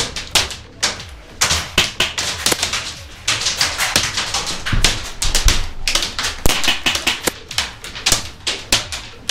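Airsoft guns firing in quick, irregular strings of sharp clacks, with BBs smacking the wooden walls of a small room.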